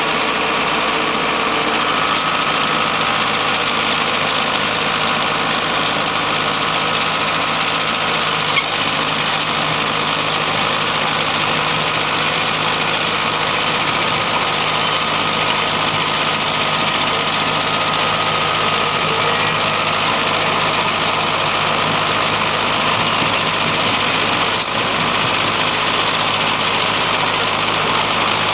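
Diesel engine of an Atlas Copco ROC 642HP crawler drill rig running steadily as the rig moves on its tracks, with a steady high whine over the engine sound.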